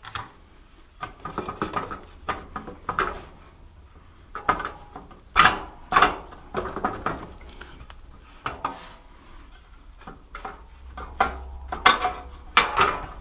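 Irregular metallic clinks and knocks of hand tools and metal parts as a monkey bike's exhaust is unbolted and worked loose, some strikes ringing briefly.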